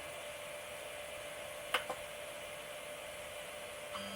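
SUNLU S8 3D printer running with a faint, steady fan whir, with a quick double click a little under two seconds in. Right at the end a steady electric hum from the printer sets in.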